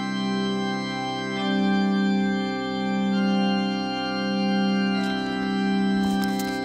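Slow organ music: sustained chords held with a gentle, wavering swell, moving to a new chord every second or two.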